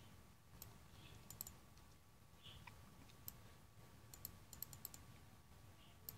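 Faint clicks of a computer keyboard and mouse as the on-screen view is moved, some single and some in quick runs of several.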